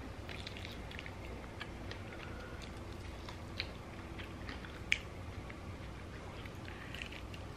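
Quiet chewing and small wet mouth clicks of someone eating a sauced chicken wing, with two sharper clicks about three and a half and five seconds in.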